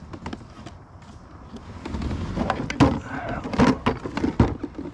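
Small plastic cooler being lifted and shifted around on a kayak's deck: a run of knocks, clunks and scrapes, loudest from about two seconds in.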